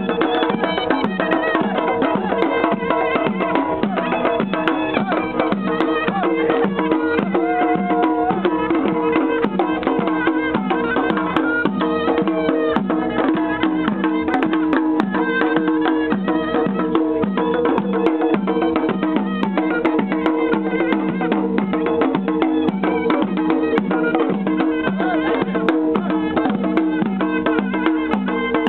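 Live folk music: several small drums beaten with sticks in a fast, steady rhythm under a wind instrument playing a wavering melody, over a steady droning note.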